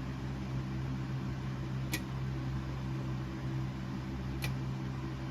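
Steady electrical hum of a running motor or fan, with two sharp ticks about two and a half seconds apart.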